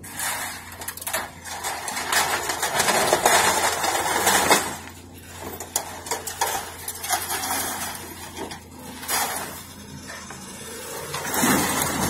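Scrap metal clattering, scraping and clanking as an excavator's orange-peel grapple bites into a trailer load of mixed scrap and lifts it off. The clatter is densest a few seconds in, over a steady low hum.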